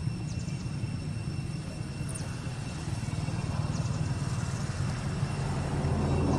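Steady low rumble of outdoor background noise, with a faint steady high whine and a few brief high chirps.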